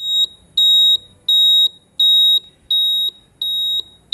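Quiz countdown timer sound effect: a high-pitched electronic beep repeating about one and a half times a second, each beep a fraction of a second long, while the answer time runs down.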